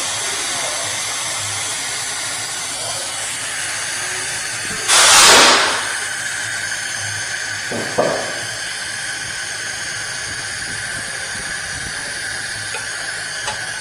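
Compressed air blasting for about a second, about five seconds in, then a short puff near eight seconds, as the car lift's air-operated lock release is worked to trip the safety locks; the locks do not release. A steady hiss runs throughout, and a steady high whine sets in with the blast and continues.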